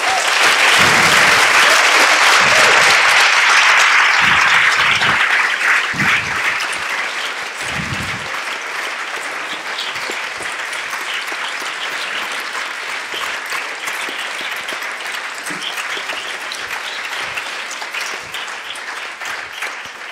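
Audience applauding, loudest for the first five seconds or so, then settling into steadier, somewhat quieter clapping.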